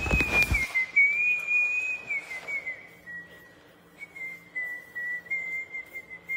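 A thin, high whistling tone, held for several seconds, wavering slightly and sinking a little in pitch partway through, over faint handling noise.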